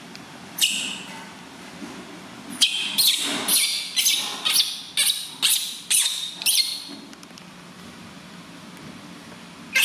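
Newborn baby monkey crying in short, high-pitched squeals: one about half a second in, then a quick run of about nine, roughly two a second, each rising and falling in pitch, and another starting near the end.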